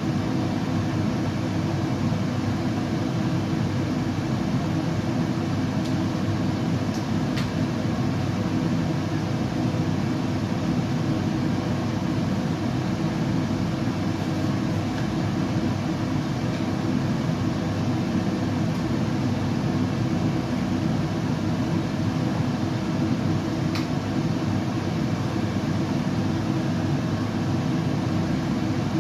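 Steady, unbroken low rumbling noise of a baby-sleep white noise track, heaviest in the low range with little hiss. Two faint ticks come about a quarter of the way in and again about four fifths in.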